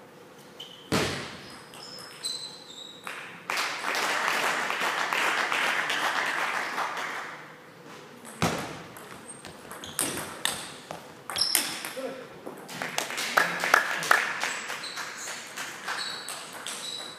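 Table tennis ball clicking off bats and table in a rally, sharp pings that ring in a large hall, coming quickly from about ten to thirteen seconds in. A few seconds of steady noise fill the gap between rallies.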